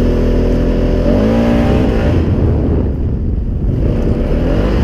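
Polaris Sportsman 570 ATV's single-cylinder engine under way, its pitch rising about a second in as it accelerates; over the second half the sound turns rough and noisy.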